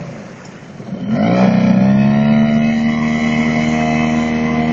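Hangkai 4 hp outboard motor drops in pitch and level as the throttle is eased off, then revs back up over about a second and runs steadily at speed.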